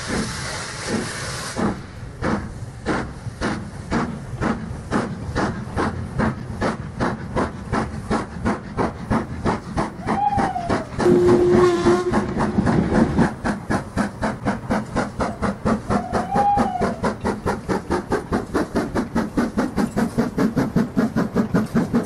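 Steam locomotive hissing steam briefly, then running with a steady, regular chuff of exhaust beats that quicken a little towards the end. A single short whistle sounds around halfway through.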